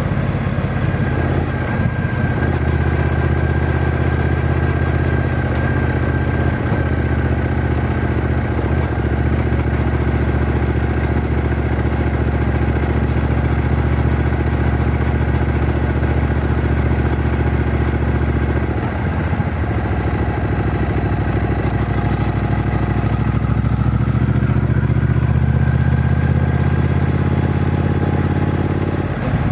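Triumph Bonneville T120's 1200 cc parallel-twin engine running steadily while riding. About two-thirds of the way in the sound dips briefly and the engine note shifts, then it rises a little again.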